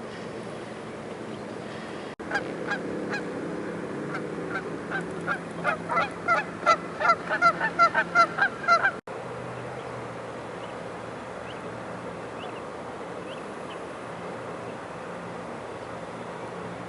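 A flock of geese honking in a quickening series of calls that grows louder. It starts abruptly about two seconds in and cuts off sharply about nine seconds in. Steady low background noise with a faint hum follows.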